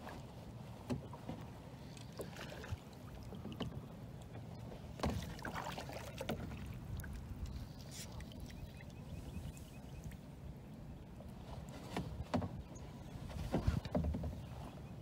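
Water splashing and sloshing around a small plastic kayak as a hooked bowfin is played at the surface, with scattered knocks and clicks and louder swells of splashing about five seconds in and again near the end.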